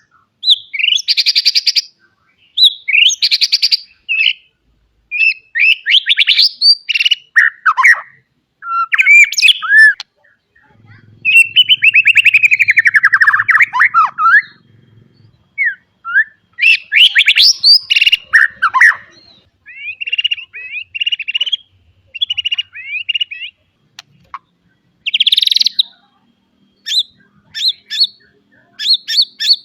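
White-rumped shama (murai batu) singing a loud, varied song of gliding whistles and chirps, in phrases of a second or two with short pauses between, packed with mimicked calls (isian). Near the end it breaks into a quick run of short, sharp chirps.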